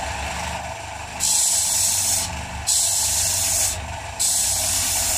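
Electric sanding disc running with a steady hum while a pipe bowl blank is pressed against its 60-grit abrasive, giving three loud grinding hisses about a second long each, with short breaks as the piece is lifted and turned.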